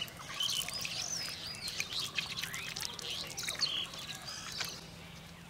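Several birds chirping and whistling at once, many short rising and falling calls overlapping, thinning out near the end. A faint steady low hum runs underneath.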